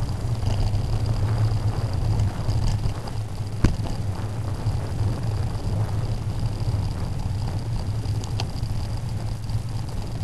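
Bicycle rolling along a rough dirt path, heard through a bike-mounted camera: a steady low rumble of tyres and mount vibration, with a sharp knock about three and a half seconds in as the bike hits a bump.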